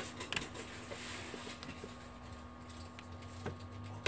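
Scattered small plastic clicks and scrapes as a plastic pry tool works the snap-fit housing of an LG GU230 phone apart, with a sharper click near the end; the housing clips are held tight. A steady low hum runs underneath.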